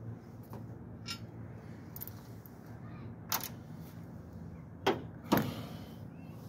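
A cordless power tool's low hum stops right at the start. It is followed by a few sharp metallic clicks and knocks of tools or loosened parts being handled and set down. The two loudest knocks come close together near the end, the second ringing briefly.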